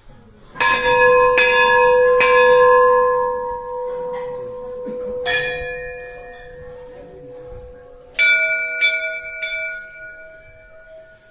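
Hindu temple bells being rung by hand. A bell is struck three times in quick succession, then a higher-pitched bell is struck once about five seconds in. Another bell is struck three times near the end. Each strike rings on and slowly dies away.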